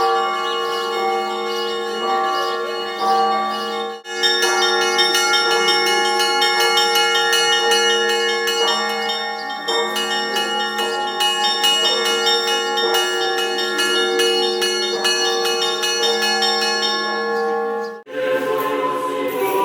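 Orthodox church bells rung together in a rhythmic peal, several bells of different pitches struck over and over, their tones ringing on between strokes. The ringing breaks off briefly about four seconds in and stops near the end.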